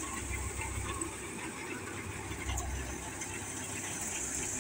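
Tractor-powered Guru Hindustan paddy thresher running steadily, its threshing noise over the low hum of the tractor engine that drives it, with a steady high hiss.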